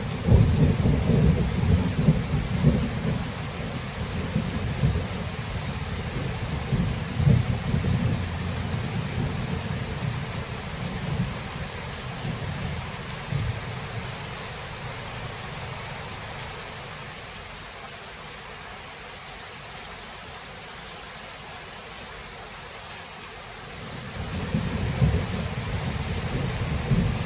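Thunderstorm: steady rain with a long rolling thunder rumble that fades out over the first half, leaving only rain, before thunder starts rumbling again near the end.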